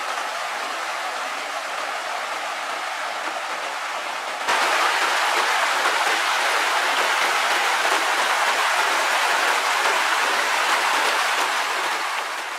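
Water rushing down a small rocky river cascade as a steady rush. It gets louder about four and a half seconds in and eases off a little near the end.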